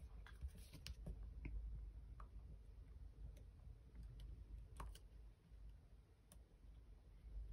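Faint, scattered small clicks and taps of paper card and a thin pointed tool being handled on a desk, over a low steady hum; a couple of slightly louder clicks come about five seconds in.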